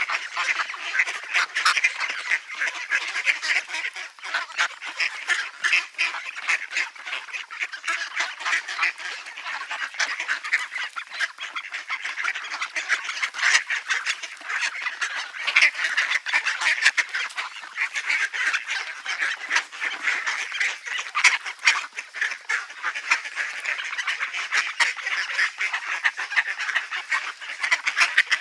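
Ducks calling in a continuous stream of short, rapid calls, many overlapping.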